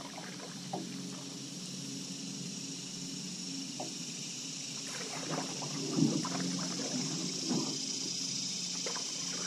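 Paddle strokes splashing and dripping in the water, a few seconds apart, the loudest about six seconds in, over a steady high hiss and a low hum.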